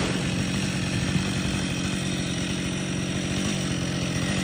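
Two-stroke chainsaw engine idling steadily.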